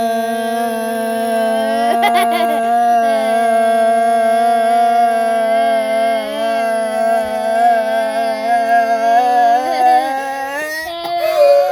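A voice holding one long sung note, steady in pitch, that slides upward near the end.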